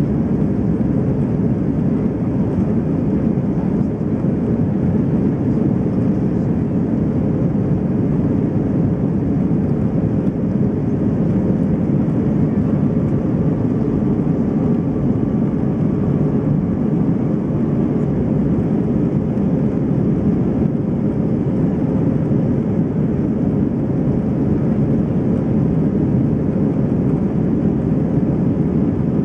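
Steady cabin noise of an Airbus A319 airliner in its climb after takeoff, heard inside the cabin at a window over the wing: a deep, even rush of engines and airflow. A faint steady hum runs through it, with a faint higher tone for a few seconds about halfway.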